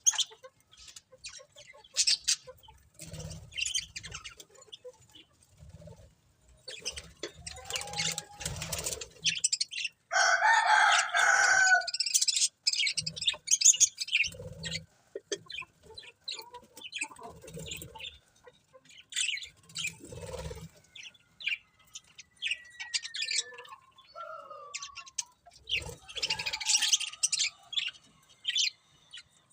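Budgerigars chirping and chattering in quick, short high calls, with a loud, dense burst of chatter about ten seconds in and a few gliding whistles later. Soft low thumps come now and then.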